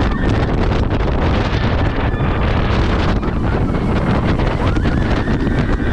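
Loud wind rushing over an action camera's microphone as a Bolliger & Mabillard hyper coaster train speeds along its track, with the train's low rumble underneath.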